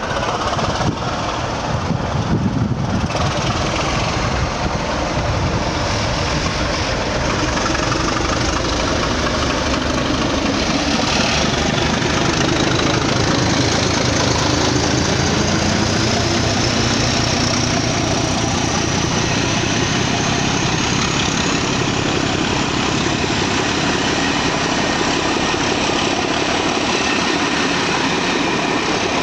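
ČSD class T478.1 'Bardotka' diesel-electric locomotive pulling away under load and passing close, its diesel engine running hard. A thin whine rises slowly in pitch as the train gathers speed, and the coaches roll by behind it.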